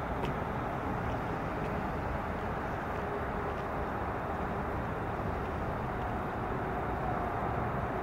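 Steady low engine rumble, with a faint hum coming up near the end.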